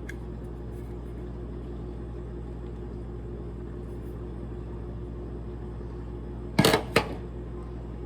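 A steady low hum with several held tones throughout. About two-thirds of the way in, two loud, sharp clicks about half a second apart, as the handheld vacuum and its plastic parts are handled.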